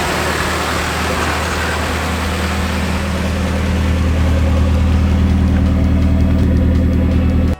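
Nissan 240SX S13's four-cylinder engine running steadily as the car drives, a low engine note under road and wind hiss. About halfway through the hiss eases and the engine note gets louder.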